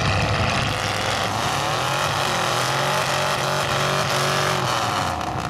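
Mud truck's engine held at high revs, its pitch wavering up and down.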